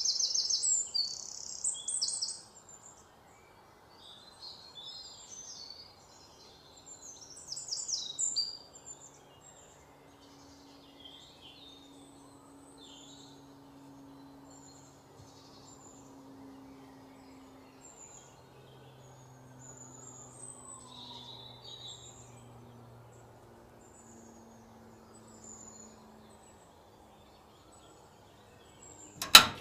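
Small birds chirping in quick high bursts, loudest in the first two seconds and again around eight seconds, with scattered fainter chirps between. A faint low hum runs under it, and a single sharp knock comes near the end.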